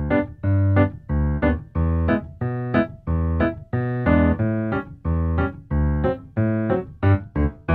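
Background music: a keyboard playing a repeating pattern of short chords and notes, about two chords a second.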